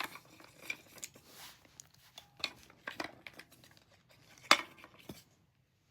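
Small metal clicks and clinks as the parts of a button press and its metal button shells are handled, with a sharper clack about four and a half seconds in.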